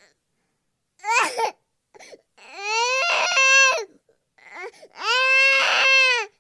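Infant crying in repeated wails: a short cry about a second in, then two longer wails of about a second and a half each, each rising and falling in pitch, with short catches of breath between.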